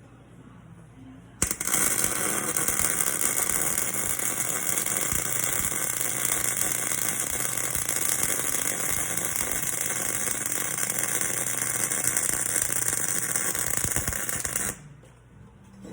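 Electric arc welding: the arc strikes suddenly about a second and a half in and runs as a steady hissing crackle for about thirteen seconds, then cuts off abruptly as the arc is broken.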